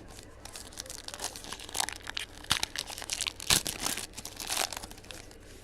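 Foil wrapper of a football trading-card pack crinkling and tearing as it is opened, in irregular crackly rustles that are loudest in the middle.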